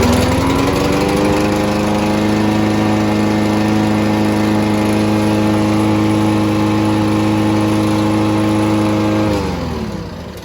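Lawn-Boy walk-behind mower engine, just started on its key-turn electric start, coming up to speed in the first second. It then runs steadily at one speed, is shut off about nine seconds in, and winds down.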